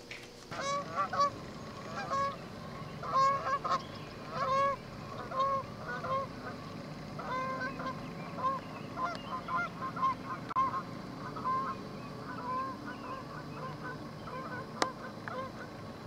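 A flock of geese honking in flight: a long run of short calls, loudest in the first few seconds and carrying on more faintly after, with a single sharp click near the end.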